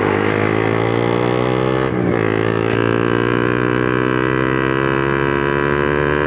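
Honda RS150R's single-cylinder engine idling steadily through an open Espada 32 mm exhaust, giving a low, even drone with a slight dip in pitch about two seconds in.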